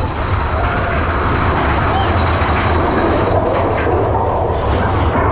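Mine-train roller coaster running along its track with a steady low rumble. Riders' voices can be heard over it.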